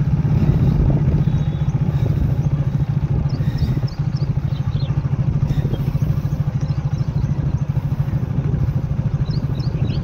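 Motorcycle engine running steadily at low speed, an even low thrum of firing pulses, heard from the moving bike.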